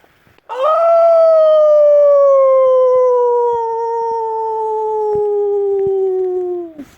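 A man howling like a dingo: one long howl that starts about half a second in, slides slowly down in pitch and drops off sharply at the end.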